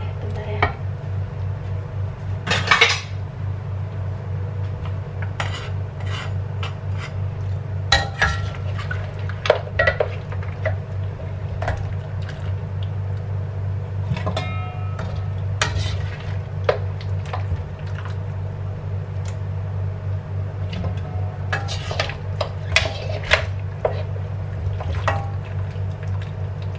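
Spatula and metal ladle scraping and clanking against a stainless steel wok while braised duck feet are stirred and scooped out: irregular clinks and scrapes, some ringing briefly, over a steady low hum.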